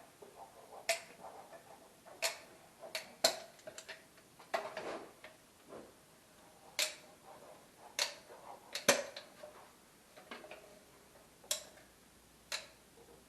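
Irregular sharp knocks and clicks, a dozen or so at uneven spacing, with a short scraping sound about a third of the way through, like hands working with tools or handling hard objects.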